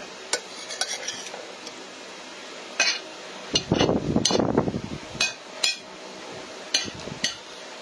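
A metal spoon clinking and tapping against a plate while eating: about a dozen sharp, irregular clicks.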